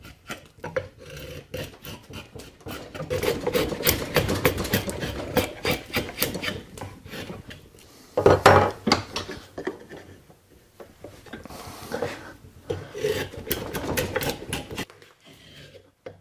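Drawknife paring shavings off a wooden hammer-handle blank clamped in a vise: a run of scraping strokes with short pauses, the loudest about eight seconds in. This is rough shaping, taking off a fair amount of wood.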